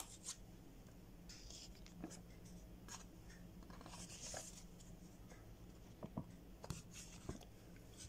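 Faint rustling and scraping as electrical tape is peeled off an AC outdoor unit's wiring, with a few light clicks from handling the wires near the end.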